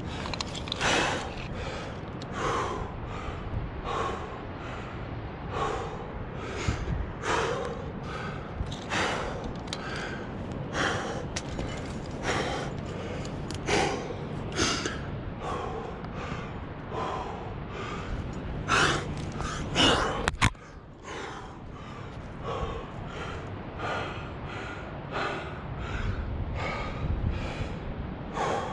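A climber breathing hard and rhythmically from the exertion of jamming up a crack, roughly one breath a second. A single sharp click comes about two-thirds of the way through.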